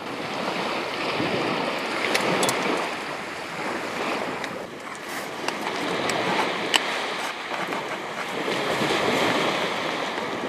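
Waves washing on a shingle beach: a steady rush that swells and eases every few seconds. A few light clinks come from a metal spoon stirring soup in a pan.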